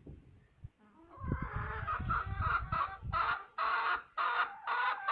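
A chicken calling over and over, a series of short loud squawks at about two a second, with rustling underneath in the first half.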